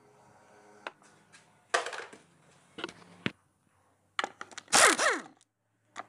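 Power tool driving a socket on an extension bar against the oil sump bolts: a few metal clicks as the socket is set on, then near the end a loud short burst from the tool with its pitch falling steeply as the motor winds down.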